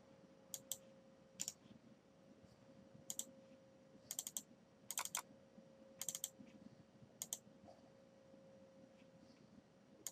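Faint, scattered clicks from working at a computer: single clicks and quick pairs like double-clicks, irregularly spaced, over a faint steady electrical hum.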